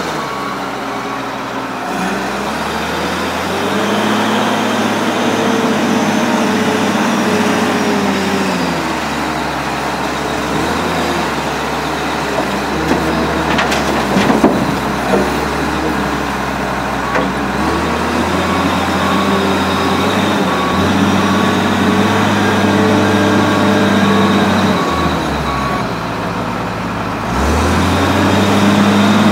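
Case 621B wheel loader's diesel engine revving up and down as it digs and lifts its bucket. About halfway through, a clatter of dirt and stones drops into the dump truck's steel body, and afterwards a backup alarm beeps steadily for several seconds while the loader reverses.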